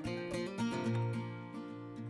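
Background music: plucked acoustic guitar notes.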